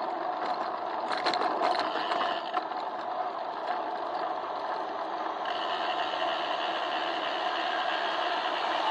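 Steady rumble and rattle of a bicycle rolling on pavement, heard as vibration through a handlebar-mounted action camera's waterproof housing, with a few sharp clicks between one and two seconds in.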